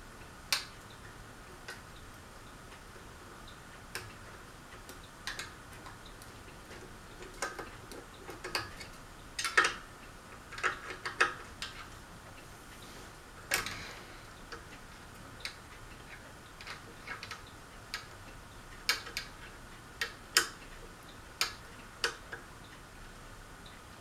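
Irregular clicks and clinks of small metal parts being handled by hand at a ceiling fan's motor hub, some sharper than others, in uneven clusters with short pauses.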